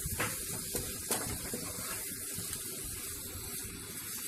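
Spiced chicken pieces sizzling in hot oil in a non-stick frying pan as a spatula stirs them: a steady hiss with a few light clicks of the spatula against the pan.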